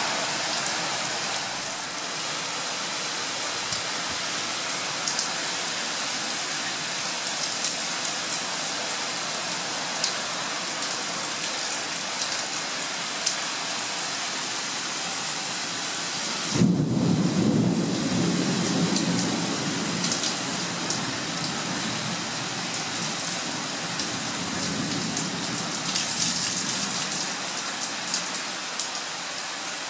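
Heavy rain falling steadily. About halfway through, a low rumble of thunder sets in suddenly and rolls on for several seconds before fading.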